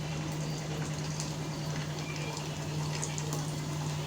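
Urad dal frying in hot oil in a pan for tempering, a steady sizzle with faint crackles, over a constant low hum.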